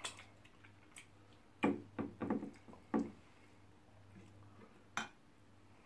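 Eating at the table: a metal fork knocking and tapping on a ceramic plate, four quick knocks in a cluster about a second and a half in, then one sharp click near the end.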